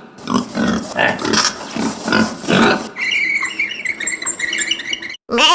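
Pig grunting repeatedly, about two grunts a second, for the first three seconds; a quieter, different sound with scattered high tones follows before a brief break near the end.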